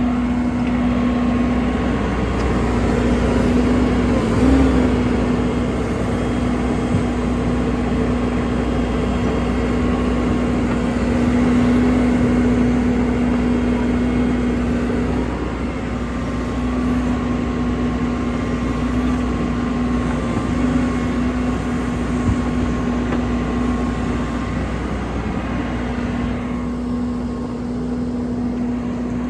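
Diesel engine of a 2015 Cat 450F backhoe loader running steadily with a strong even hum, the tone dipping briefly a few times.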